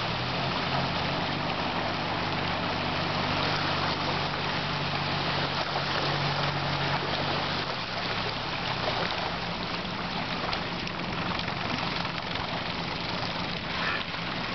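Mercury 60/40 jet outboard on a jon boat running steadily, a low engine hum over a constant rush of river water; the engine hum weakens about eight seconds in.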